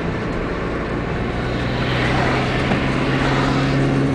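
Car engine and road noise from inside the cabin, with the car crawling in stop-and-go traffic. The steady engine hum drops in pitch about half a second in.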